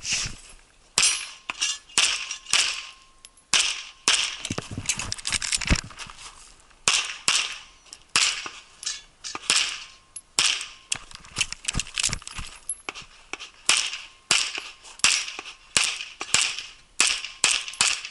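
Rapid pistol fire from a 1911-style handgun loaded with minor power factor ammunition: about thirty sharp shots, mostly in quick pairs, with short pauses between groups.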